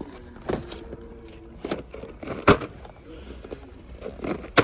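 Scattered sharp knocks and clatters, the loudest about two and a half seconds in, over faint voices and a low steady hum.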